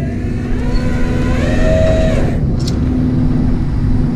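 Tow truck's engine running with a steady low rumble. A brief pitched sound rises and falls about a second and a half in, and there is a sharp click a little later.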